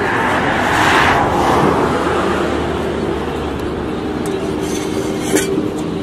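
Road traffic passing close by: a vehicle goes past about a second in, its noise swelling and fading, then a steady engine hum with a sharp click near the end.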